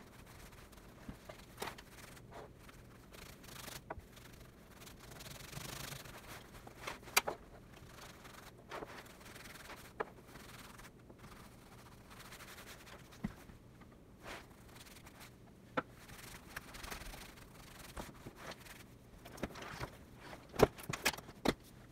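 Hands rubbing conditioner into a leather jacket and handling it: soft rubbing and rustling of leather, broken by scattered sharp clicks and knocks, the loudest a little before the end.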